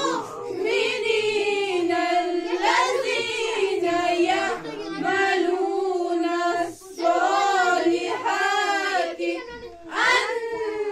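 Children singing a slow, melodic religious chant, held in long phrases with two short breaks for breath.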